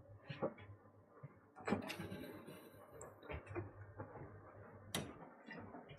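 Faint handling noises from a boiler's internal parts being opened up for inspection: light knocks and clicks, a scrape about two seconds in and a sharp click near the end, over a low steady hum.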